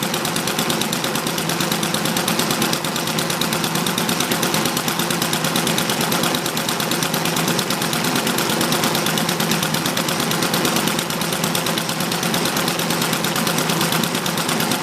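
Small model sideshaft horizontal internal-combustion engine running steadily under its governor, with a fast, even popping exhaust, while it drives a model sawmill whose blade is cutting through a pine log.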